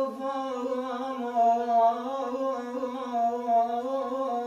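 Solo voice singing an unaccompanied Iraqi mawwal, holding one long, wavering note without words.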